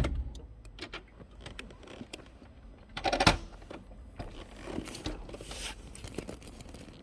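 Aprilia RSV4 RR's V4 engine stopping abruptly right at the start, leaving quiet broken by scattered small clicks and scrapes and one louder, short rustling noise about three seconds in.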